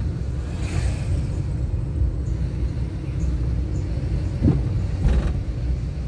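Nissan March (Micra) driving: a steady low rumble of engine and road. Two brief knocks come about four and a half and five seconds in.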